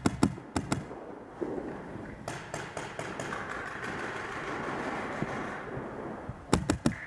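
Paintball marker firing quick bursts of sharp pops: several rapid shots at the start and again near the end, with fainter shots and a rushing noise in between.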